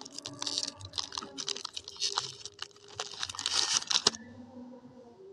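A foil Glico Pretz snack packet crinkling and tearing as it is opened: a quick run of crackles and rustles that stops about four seconds in.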